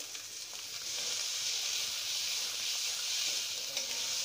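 Masala and cherry tomatoes sizzling in hot mustard oil in a steel kadhai: a steady frying hiss that gets a little louder about a second in.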